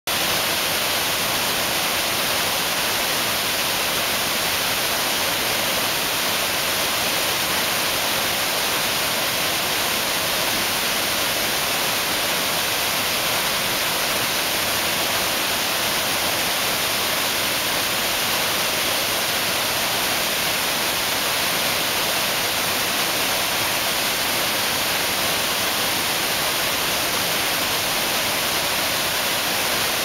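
Waterfall in high flow, whitewater cascading over granite ledges and boulders: a loud, steady rush of water that does not change.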